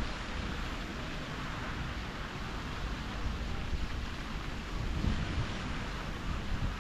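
Fountain jets splashing steadily into a pond, with wind buffeting the microphone in low gusts, strongest about five seconds in.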